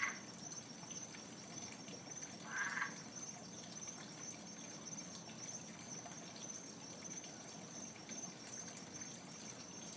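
An unidentified frog giving short croaking calls, one right at the start and another about two and a half seconds in, over a steady high-pitched pulsing trill.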